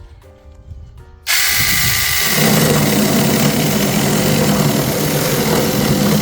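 Battery-powered mini chainsaw cutting a piece of wood. It starts abruptly about a second in and runs loud and steady.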